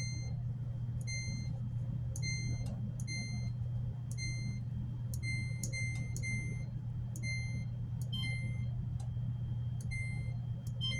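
Samsung DVE45T6000W electric dryer's control panel beeping as the cycle selector knob is turned: one short, high beep per step of the knob, unevenly spaced at roughly one or two a second.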